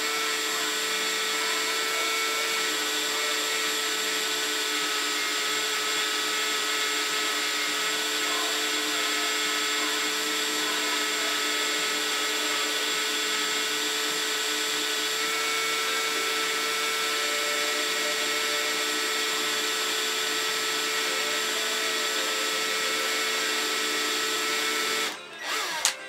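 Handheld power drill running at a steady speed as a small bit bores a hole into the steel end of a hydraulic lift cylinder, stopping about a second before the end.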